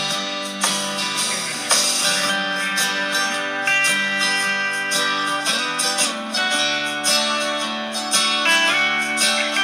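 Background music led by plucked guitar, with a steady strummed rhythm.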